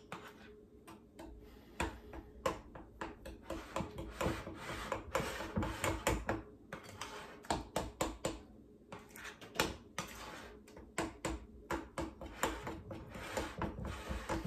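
Red velvet cake batter being stirred by hand in a glass mixing bowl, the utensil clinking and scraping against the glass in quick, irregular taps.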